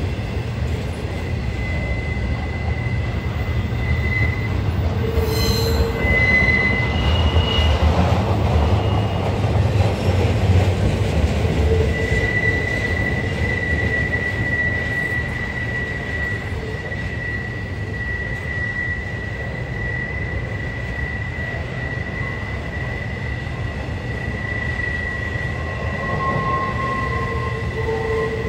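Intermodal freight train's flatcars loaded with semi-trailers rolling past with a steady low rumble. A thin high-pitched wheel squeal comes and goes in the first few seconds, then holds steadily from about halfway through.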